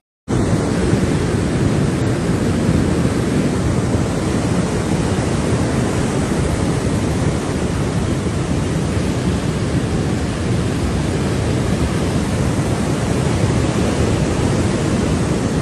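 A river in flash flood: a loud, steady, low rush of fast muddy floodwater that does not let up.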